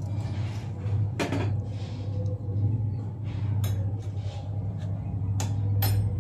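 A few sharp clinks of kitchen dishes and utensils, about four over several seconds, over a steady low hum.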